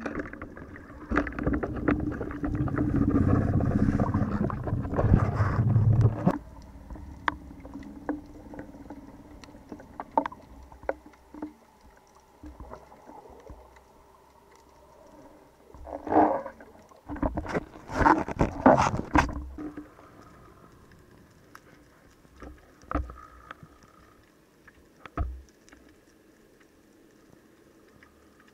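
Underwater water noise against a camera housing while a speared little tunny is brought in on the shaft line: a loud rush and churning for about five seconds, then scattered clicks and knocks, two short bursts of churning around the middle, and a few faint knocks near the end.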